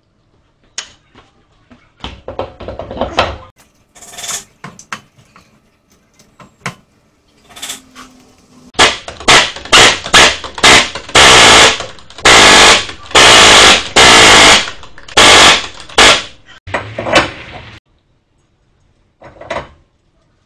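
Impact wrench hammering on the wheel's lug nuts in a rapid series of short, loud bursts lasting about nine seconds. Scattered clicks and clanks of metal parts come before it.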